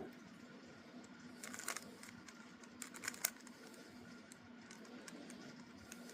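Faint plastic clicks of a Rubik's Cube's layers being twisted, in two short clusters about a second and a half and three seconds in, over a low steady hum.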